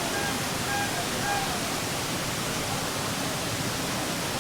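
Steady rushing of a nearby waterfall and river, an even hiss of water. A few faint short high notes sound in the first second or so.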